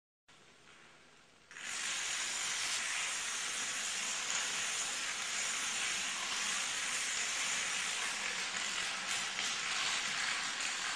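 A long chain of dominoes toppling on a wooden floor, the tiles clicking down so fast that they blur into a steady hiss. It starts faint and gets much louder about a second and a half in.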